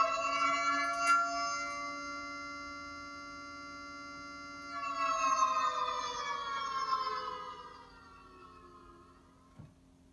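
A siren holding a steady, chord-like tone, then winding down in pitch over about four seconds and fading out.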